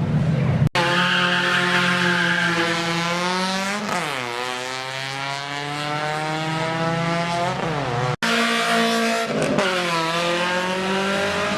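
Drag-race car engine at full throttle, its pitch climbing steadily, dropping at each gear change and climbing again. The sound breaks off abruptly a couple of times.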